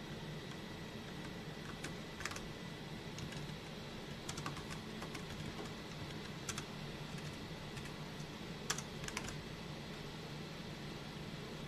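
Typing on a computer keyboard: short, irregular runs of keystrokes with pauses between them, the sharpest cluster about two-thirds of the way in, over a steady background hiss.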